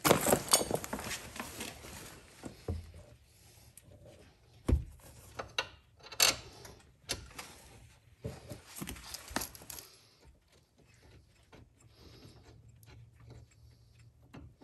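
Light metallic clinks, knocks and rustling of gloved hands and a wrench working caliper bracket bolts into the rear brake, busiest in the first ten seconds and fainter near the end.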